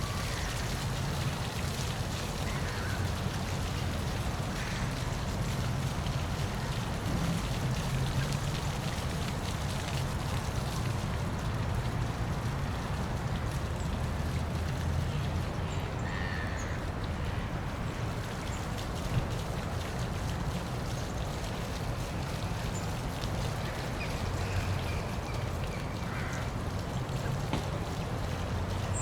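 Waterfall rushing steadily, a continuous low-heavy wash of falling water, with a few faint short calls over it.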